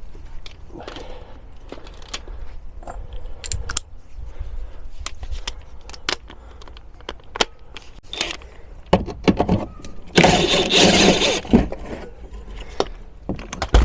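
Metal clinks, knocks and jangling as a car's rear shock absorber is worked free of its mount and lifted off. Near the end there is a louder rattling scrape lasting about a second and a half.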